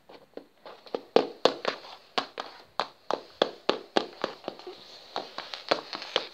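Plastic Schleich toy horse's hooves tapping on a laminate floor in quick, uneven taps, about four a second, imitating a horse walking.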